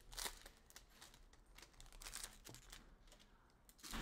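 Faint, irregular rustling and crinkling of trading card pack wrappers and cards being handled, in short scattered bursts.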